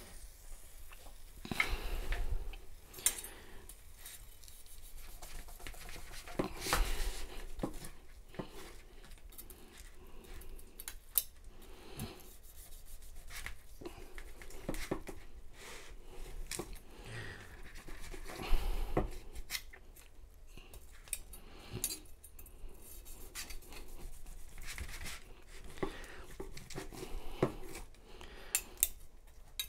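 Long knife slicing through a seared tri-tip steak, the blade scraping and tapping on the cutting board while a carving fork holds the meat, with irregular clicks and a few heavier knocks.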